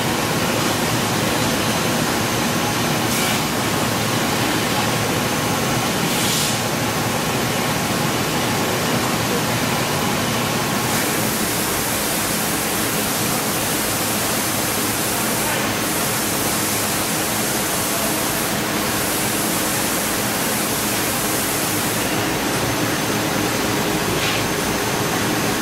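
Steady loud rushing noise of fans or air-handling machinery in an industrial shop, with a few faint steady hums in it. The hiss grows brighter from about 11 seconds in to about 22 seconds, and a few short hisses come and go.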